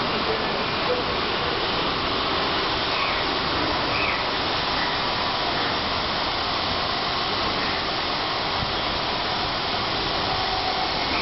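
Touchless car wash gantry spraying high-pressure water jets over a car: a steady hiss of spray that keeps an even level throughout.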